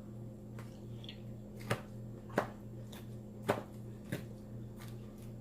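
Salad being eaten close to the microphone: four short, sharp crunches or clicks spread over a few seconds, over a steady low hum.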